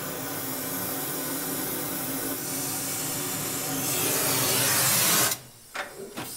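Gas cutting torch flame hissing steadily as it heats the cut stub of a steam locomotive boiler smoke tube, so that the end shrinks enough to come out. The hiss swells a little about four seconds in, cuts off abruptly just after five seconds, and is followed by a couple of light knocks.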